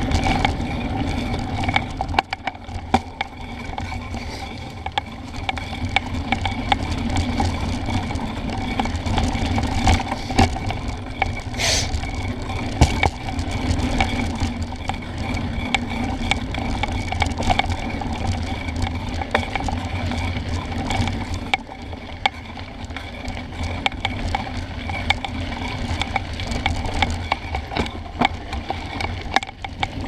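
Mountain bike rolling fast over a dirt singletrack: steady tyre noise on the packed earth, with the chain and frame rattling in frequent sharp clicks over bumps. It eases off briefly twice, a couple of seconds in and again about two-thirds of the way through.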